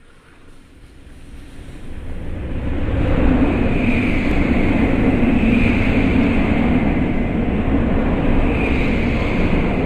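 Jet-engine sound effect from a battery-operated toy airliner, a rushing roar that swells up over about three seconds and then holds steady.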